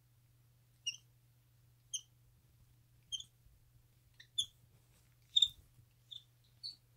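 Capuchin monkey giving short, high-pitched chirps, about one a second, the loudest about five and a half seconds in.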